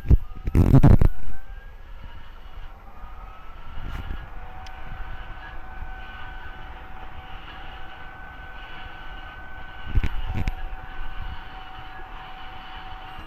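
A heavy thump, then the motor of a Fisher & Paykel top-load dryer winding up with a rising whine that settles into a steady whine over a running hum. A couple of knocks come about ten seconds in.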